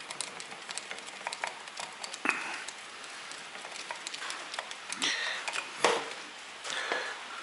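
Small clicks, taps and scrapes of parts and hand tools being handled during disassembly, with a few sharper knocks about two seconds in and again around five and six seconds.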